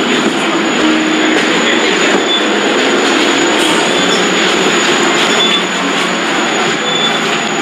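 MBTA subway train running through the station: a loud, steady rumble of wheels on rail, with short high squeaks now and then.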